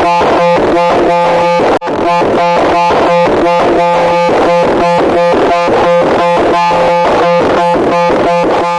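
Loud, harsh electronic tone pulsing rapidly, about five to six beats a second, with a brief break about two seconds in.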